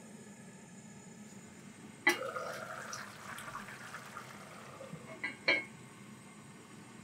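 An enamelled cast-iron Staub pot: a sharp clank about two seconds in, followed by a second or so of liquid splashing into the pot. Near the end, two clinks as the heavy cast-iron lid is set on.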